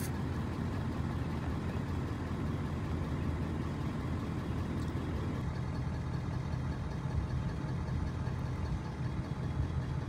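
A motor vehicle's engine running steadily with a low rumble of driving noise, even throughout.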